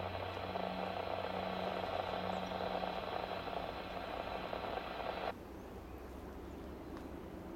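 Locomotive horn of a Norfolk Southern C40-9W sounding one long steady blast that cuts off sharply about five seconds in, over the low drone of the approaching diesel locomotive.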